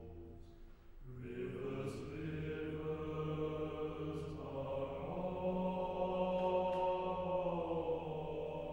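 Chamber choir singing sustained chords over a low held drone; the sound thins to a quiet dip about a second in, then the voices enter again and swell.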